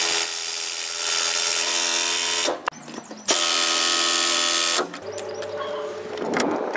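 Compact cordless impact wrench on a long socket extension, run in three bursts with short clatters between, loosening the mounting nuts of a rusted brake master cylinder.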